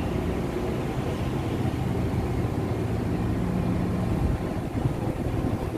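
Ship's machinery running with a steady low drone.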